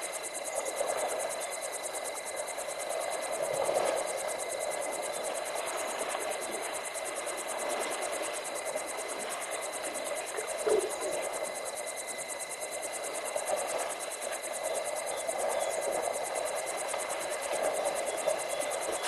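Steady rushing noise of a river at night, with a faint constant high tone over it and one brief louder sound about ten seconds in.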